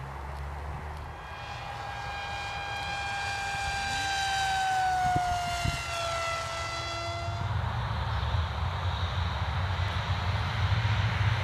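Blade Manta RC delta wing's electric pusher motor and propeller whining as it flies past. The whine grows louder, drops in pitch about five or six seconds in and fades by about seven and a half seconds. A rushing hiss and low rumble follow.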